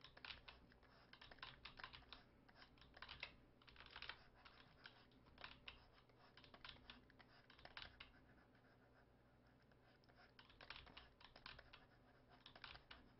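Faint, irregular clicking and tapping of computer keyboard keys during digital painting, in quick clusters with a lull of about two seconds before the clicks resume.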